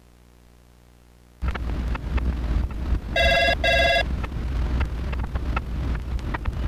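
Telephone double ring, two short rings about three seconds in. Behind it, a loud low rumble with scattered crackles starts suddenly about a second and a half in; before that there is only a faint hum.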